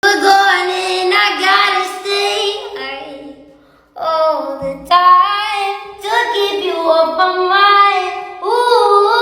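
A girl singing unaccompanied in several sustained, wavering phrases, with a brief pause just before four seconds in.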